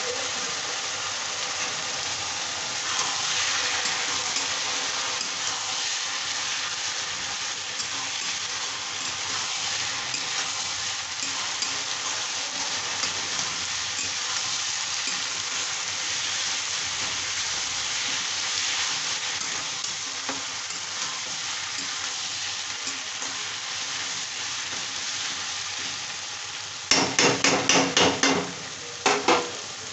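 Sliced onions and tomatoes sizzling as they fry in oil in a kadai, stirred and scraped with a flat metal spatula. Near the end comes a quick run of about six sharp metal knocks, then two more, as the spatula is tapped against the pan.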